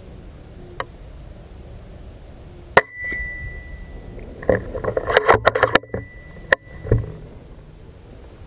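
An air rifle fires twice, about four seconds apart. Each shot is a sharp crack followed by a brief high ring, and between the two shots comes a quick clatter of clicks.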